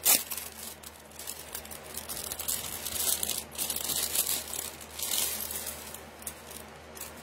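Plastic jewelry packaging crinkling and rustling in irregular bursts as a necklace is handled and taken out, with a sharp rustle right at the start.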